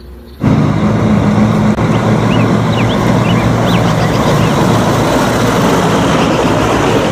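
A Mack semi-truck's diesel engine running steadily as the truck drives along a road. It starts abruptly about half a second in.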